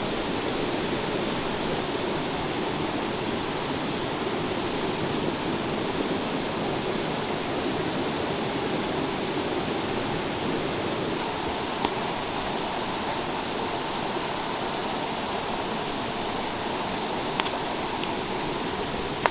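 River water rushing steadily, with a few faint sharp clicks over it.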